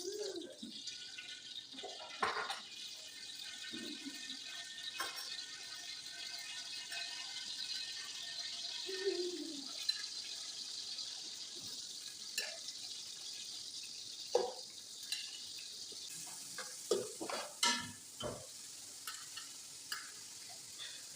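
Ingredients frying in hot oil in a pot, a steady sizzling hiss, with scattered knocks and scrapes of a spoon against the pot as they are stirred.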